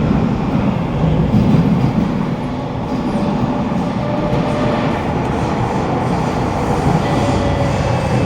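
Inside a Kawasaki Nippon Sharyo C751B MRT car running in the tunnel: a steady rumble of wheels on track, with a faint motor whine that comes and goes.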